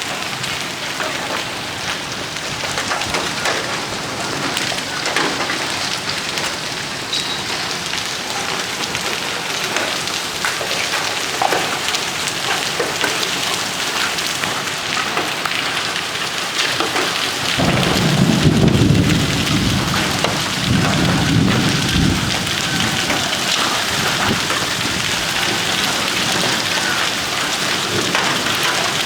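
Heavy downpour of rain and large hailstones, a dense patter full of sharp ticks as the ice strikes surfaces. A little past halfway a deep rumble of thunder rolls in and fades after a few seconds.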